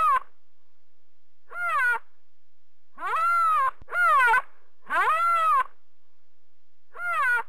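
Giant panda cub calling: about five separate short cries, each rising and then falling in pitch, with pauses between them.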